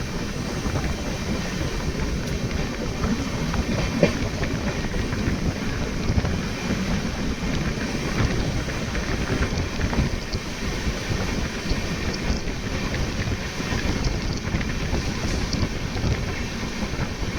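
Indian Railways passenger train running: a steady rumble of the coach on the track, with wind buffeting the microphone and a sharp knock about four seconds in.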